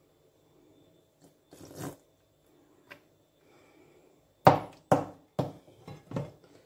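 Wooden spoon knocking and scraping in a pan while spreading tomato purée: one soft scrape about two seconds in, then a run of about five sharp knocks roughly half a second apart in the second half.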